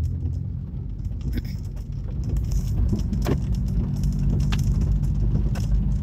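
A low, steady motor-like rumble and hum, with a few faint clicks scattered through it.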